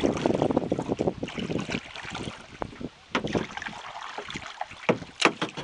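Canoe paddle strokes splashing in river water, with water dripping and pattering from the blades. The splashing is heaviest at the start, then thins into scattered drips and sharp taps, with one sharper tap about five seconds in.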